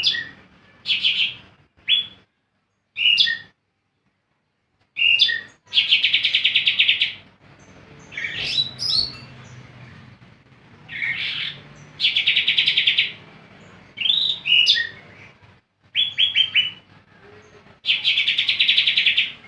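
Green leafbird (cucak ijo) singing vigorously: short sweeping whistled notes mixed with rapid, buzzy trills about a second long that come back roughly every six seconds, with a brief silent break early on.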